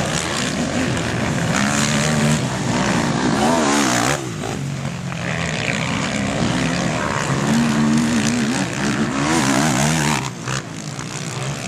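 Racing quad ATV engines revving hard as the quads accelerate up the track, the pitch rising and falling with throttle and gear changes. The sound drops off abruptly about four seconds in and again near the end.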